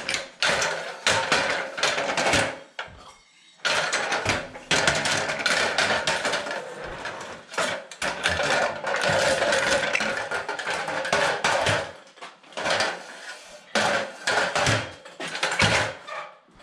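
Busy knocking and clatter of hand work, wood and hard objects being handled and knocked together, with a short lull about three seconds in.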